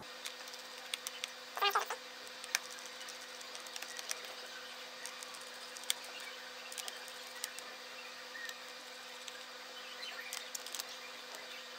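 Laptop screws being undone and the plastic case handled: scattered small clicks and taps over a steady buzzing hum, with a brief warbling squeak about two seconds in.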